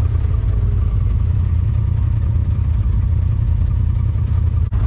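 Steady low rumble of a vehicle's engine running, with a momentary dropout near the end.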